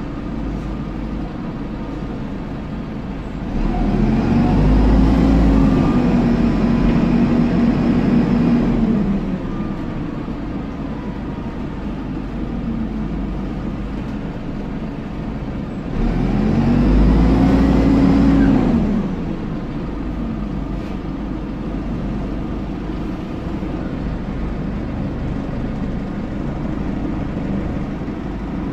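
Dennis Dart SLF bus heard from inside the saloon while driving, its rear engine and cooling fan giving a steady low running noise. Twice the note rises and grows louder for a few seconds, then falls away again: about four seconds in for some five seconds, and again about sixteen seconds in for about three.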